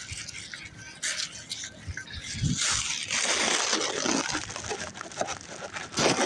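Footsteps on pavement with scattered clicks, and a rushing noise that swells and fades in the middle; a short loud burst near the end.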